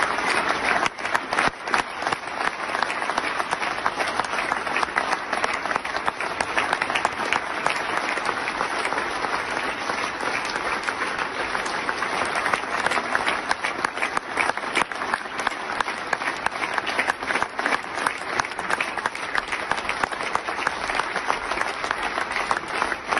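Large audience giving a standing ovation: dense, steady applause of many people clapping, with no break.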